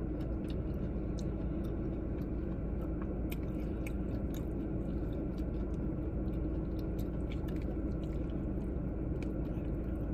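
Close-up chewing of soft food, with scattered light clicks of a metal fork against a plastic food tray, over a steady low hum.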